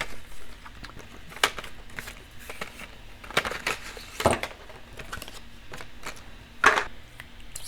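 Engineer SS-03 solder sucker (desoldering pump) being handled and worked by hand: scattered sharp clicks and knocks among light rustling, four of them louder, about a second and a half, three and a half, four and a quarter and six and a half seconds in.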